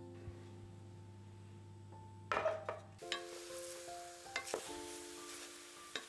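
Background music over cooking sounds. A short noisy knock comes a little over two seconds in, then a steady hiss with a few light clicks as sugar goes onto sliced peaches in a pot on the heat.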